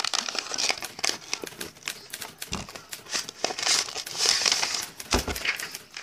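Sheets of typing paper rustling and crinkling as they are handled and pulled from their box, with two dull bumps about two and a half and five seconds in.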